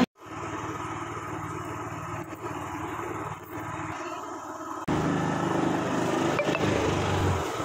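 Motorcycle engine running steadily. The sound drops out for a moment at the start, then jumps abruptly louder about five seconds in.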